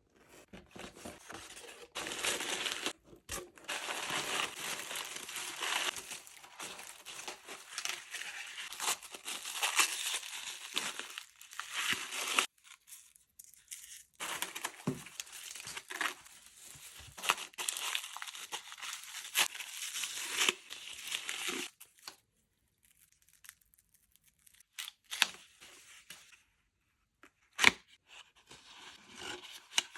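Packaging being torn open and crinkled by hand, in long stretches of ripping and rustling, then scattered rustles and a sharp snap near the end.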